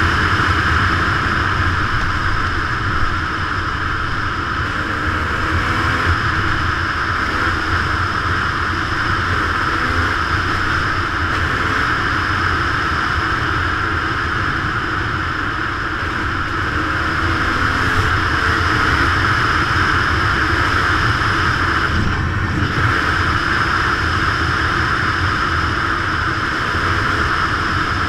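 Dirt bike engine running steadily on the move, under a constant rush of wind and tyre noise on a gravel track.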